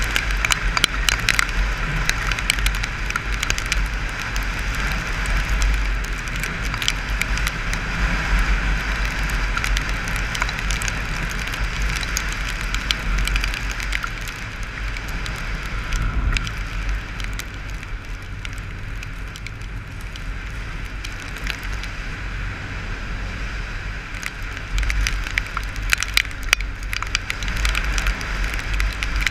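Wind rumbling over a helmet-mounted camera on a moving Honda motorcycle in the rain, with many raindrops ticking sharply on the camera case and the engine running faintly underneath. The wind eases a little past the middle, then picks up again.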